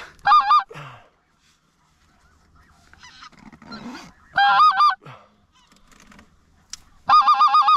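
Hand-blown goose call giving two short wavering two-note honks. From about seven seconds in it switches to a fast run of clucks, about four or five a second.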